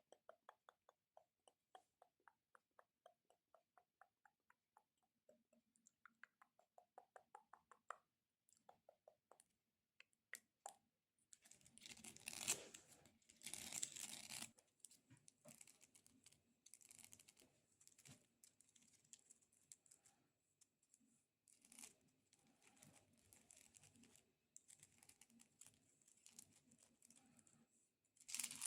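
Long acrylic nails tapping rapidly on a golden elephant figurine, about four crisp clicks a second with a faint ringing pitch. About eleven seconds in this gives way to harsher scratching and tapping with the nails, which by then is on a multicolored corn cob.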